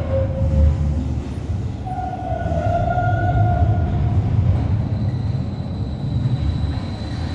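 Stuttgart GT4 articulated tram running into the depot with a steady low rumble. About two seconds in, a high squealing tone sounds for about two seconds, and from about halfway a thin, higher whine runs on.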